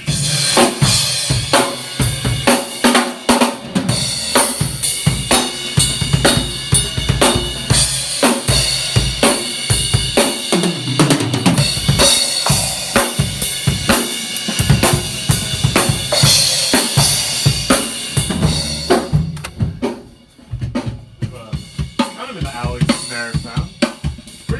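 A rock drum kit being played hard: kick drum, snare and crashing cymbals in a fast, busy beat. It drops off briefly about twenty seconds in, then lighter hits resume.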